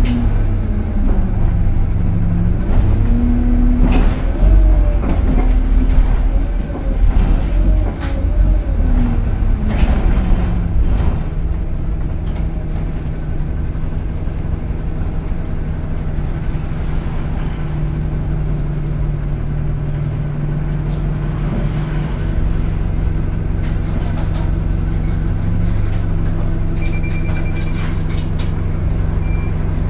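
Inside an Alexander Dennis Enviro200 MMC single-deck bus: for about the first ten seconds the engine and transmission whine rises and falls in pitch as the bus changes speed, then it settles into a steady hum. A short run of high beeps comes near the end.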